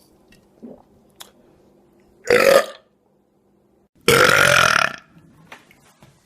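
A man burping loudly on command, twice: a short belch about two seconds in and a longer, drawn-out one about four seconds in.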